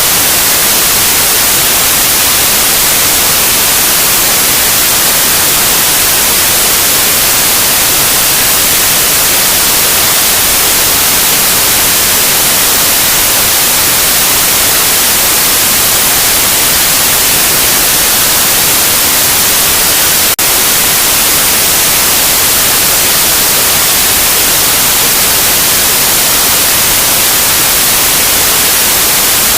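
Loud, steady white noise, an even hiss strongest in the treble. There is one brief dip, like a splice, about two-thirds of the way through.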